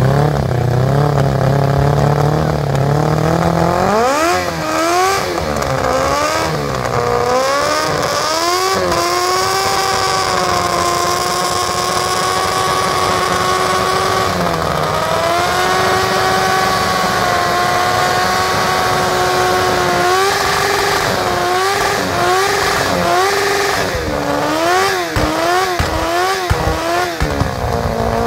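Motorcycle engine revved hard for a burnout, spinning the rear tyre. It runs low and steady, climbs sharply about four seconds in, swings up and down a few times, then holds high revs level for several seconds. Near the end it is blipped up and down, about twice a second.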